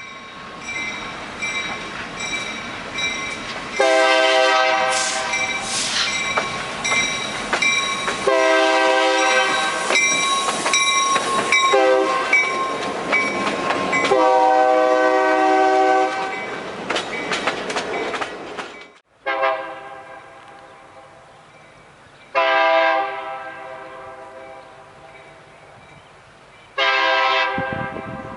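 Extremely loud Nathan K3LA five-chime horn on locomotive CLNA #4612, sounding long, long, short, long (the grade-crossing signal) over the rumble and wheel clatter of the train. After a cut, three shorter separate blasts sound over the running train.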